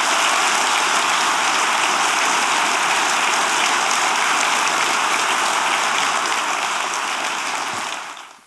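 A large audience applauding steadily, fading out near the end.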